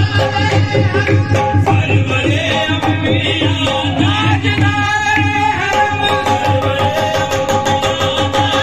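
Qawwali music: a singing voice over a steady hand-drum beat.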